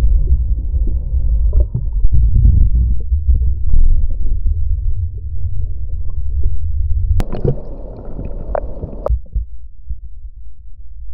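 Deep, muffled rumble and churn of surf water heard through an action camera in a waterproof housing, with little treble. About seven seconds in, a sharp click opens a couple of seconds of brighter, hissier water sound, which ends with another click. The low rumble then goes on more quietly.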